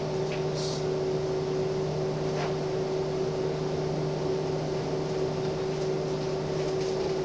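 Gillig Phantom transit bus's diesel engine running at a steady speed while the bus drives, heard from the driver's seat: an even drone with a steady hum over it.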